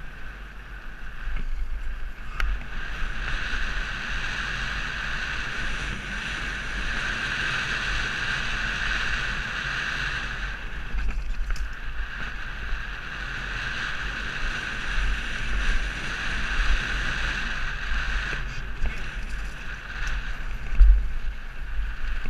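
Mountain bike descending dry dirt singletrack, heard from a mounted GoPro: a steady rush of wind and tyres rolling on dirt, with knocks and rattles from the bike over bumps and one hard knock near the end.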